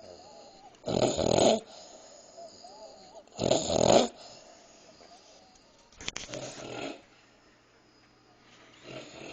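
A woman snoring loudly. Two strong snores come about two and a half seconds apart, then a weaker snore with a sharp click about six seconds in, and a faint one near the end.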